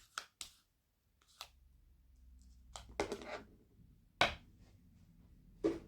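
Kitchen handling sounds while the yogurt is put into the mix: a few scattered sharp knocks and clicks, the loudest a little after four seconds in.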